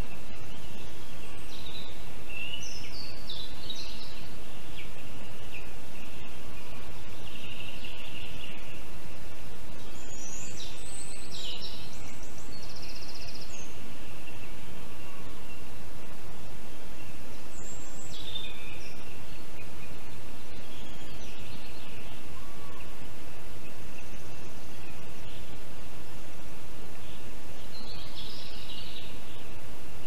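Steady hiss of forest ambience on an outdoor nest-camera microphone, with a faint, steady high tone and several short, high bird calls scattered through.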